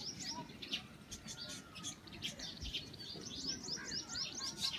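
Small birds chirping: many short, high calls overlapping, with a quick run of rising chirps near the end.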